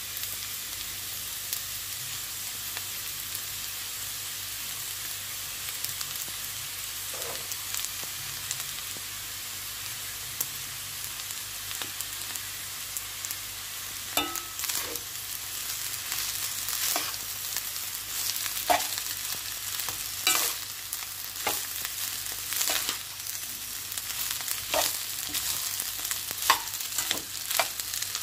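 Oil sizzling steadily in a frying pan of diced carrots, peas and liver as cooked rice is added. From about halfway, a metal spoon clicks and scrapes irregularly against the pan as the rice is turned into the vegetables.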